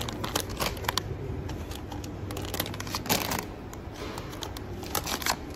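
Filled plastic-film bags of powder crinkling and clicking as they are handled and set down on a bench scale, with a louder rustle about three seconds in. A steady low hum runs underneath.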